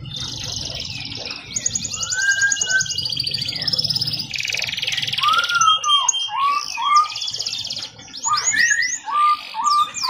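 Domestic canary singing continuously: long runs of rapid high trills and rolls, then from about halfway a string of short arched whistled notes, three in a row and again near the end, woven between further trills.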